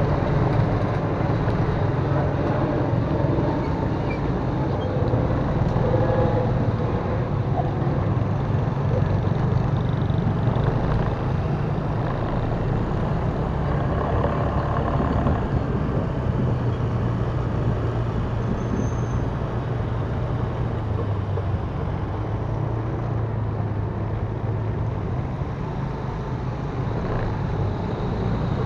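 Honda Click 125 scooter engine running while riding, its low hum shifting in pitch as the throttle changes, under a steady rush of road and wind noise.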